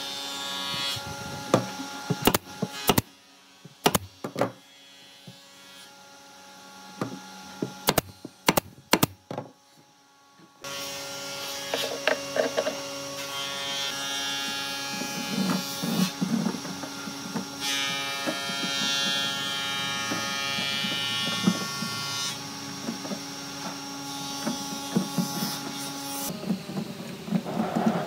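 Handling sounds of fitting pieces into a wooden cabinet: scattered taps and clicks for the first ten seconds. After that a steady electric hum starts, and under it come rustles and knocks as a plastic corrugated drain hose is pushed in and fitted to a sink drain.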